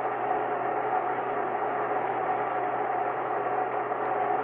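Steady rushing roar of a missile's rocket engines in flight, on an old film soundtrack with a constant low hum and a couple of steady tones mixed in.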